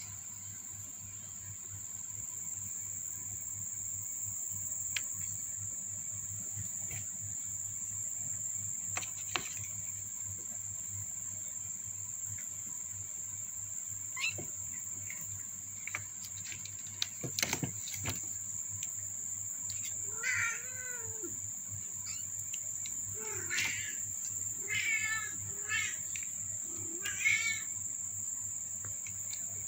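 Young kittens mewing, a run of short high-pitched cries in the second half, over a steady high whine. A few knocks come a little past halfway.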